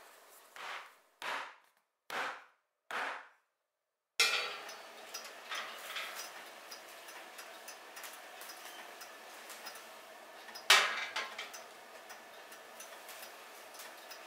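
Metal pans clanking as a baking tray and a square aluminium cake pan are handled on an oven rack, with light ticks and rattles between. The loudest clank comes near the end, as the cake pan is set down on the metal tray. It opens with four short, soft swishes.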